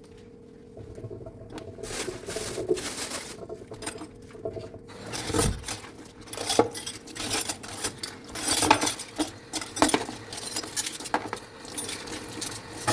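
Dishes and cutlery being washed by hand, clattering and clinking against each other. It starts faint about a second in and grows into busy clatter about halfway through.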